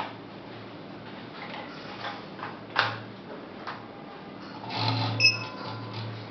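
Handling clicks and rustles of a power adapter being plugged into a CO2 meter, with a sharper click about three seconds in and a brief high tone about five seconds in.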